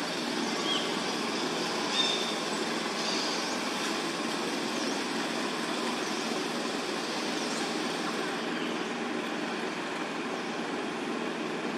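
Steady outdoor background noise with a few faint high chirps, and a brief small tick about two seconds in.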